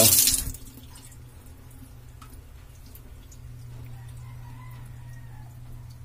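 Water running from a plastic faucet is shut off about half a second in, and the flow stops sharply. What follows is a low steady hum with a few faint ticks.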